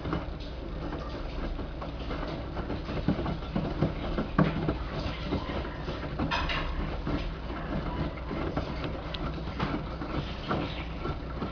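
LG 6 Motion WD1485TD front-loading washing machine washing a load of towels: the drum turns and the wet towels tumble, giving irregular soft knocks and clicks over a steady low hum.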